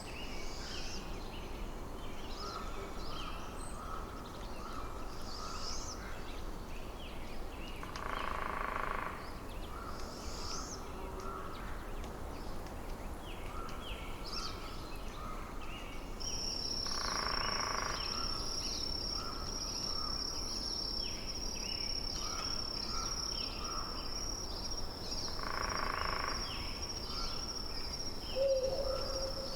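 Forest ambience of many small birds chirping over a faint steady hiss, with a louder call of about a second repeating roughly every nine seconds. A high, steady, thin tone joins about halfway through and continues to the end.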